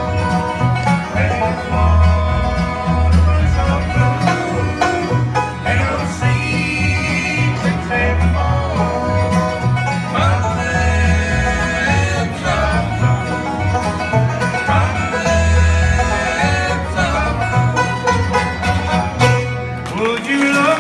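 Bluegrass band playing an instrumental break, with banjo and guitar picking over a low bass line.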